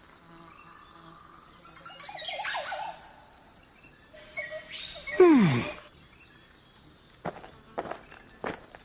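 Steady high, cricket-like chirring, with a short warbling call about two seconds in and a loud cry sliding steeply down in pitch about five seconds in. A few sharp clicks come near the end.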